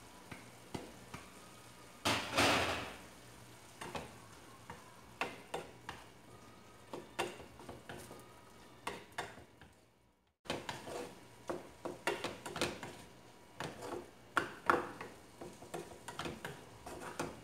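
Spatula knocking and scraping against a frying pan as chicken and mushroom filling is stirred: irregular clicks and taps, with one longer, louder burst of noise about two seconds in. The sound drops out briefly about ten seconds in.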